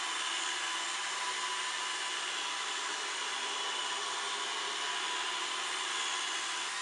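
iRobot Roomba robot vacuum running steadily, its motor and brushes making a constant hiss with a fixed high whine, loud enough to be "not exactly silent", as it cleans in its starting spiral pattern.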